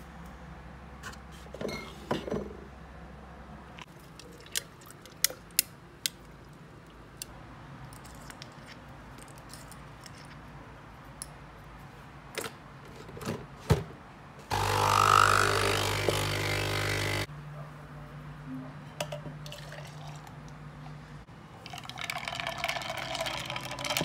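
Capsule espresso machine's pump running loudly for about three seconds in the middle as it brews a shot into an insulated tumbler, then a fainter hum. Before it come scattered clicks and clinks of ice and cup handling, and near the end liquid pours into the tumbler.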